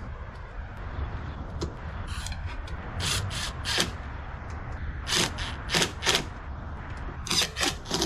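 Hand tools and metal parts being handled while a bracket is bolted onto an ATV: a dozen or so sharp clinks and knocks at uneven intervals, bunched around the middle and near the end, over a steady low rumble.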